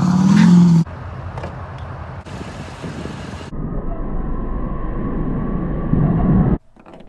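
Duramax turbo-diesel V8 pickup trucks heard across short back-to-back clips. An engine revs hard for the first second, then drops to quieter engine and tyre noise. From about three and a half seconds a truck runs toward the listener with a low rumble that grows louder until the sound cuts off suddenly.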